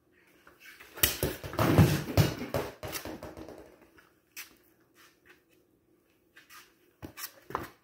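Plastic toy bowling pins knocked down by a ball, clattering and rolling on a concrete floor for about two seconds before dying away. A single sharper knock comes near the end.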